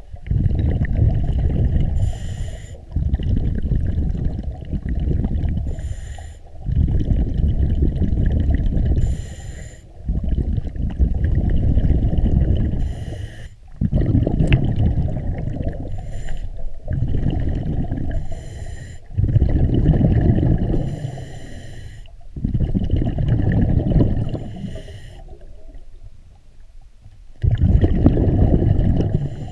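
Scuba diver breathing underwater through a regulator, about one breath every four seconds. Each breath is a short hiss of the inhale through the demand valve, followed by a long, loud gurgle of exhaled bubbles.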